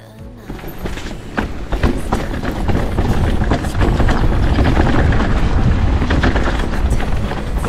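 Mountain bike riding down a rough enduro trail: tyres rumbling over rocks and roots with many knocks and rattles, building up over the first two seconds and then running loud and steady.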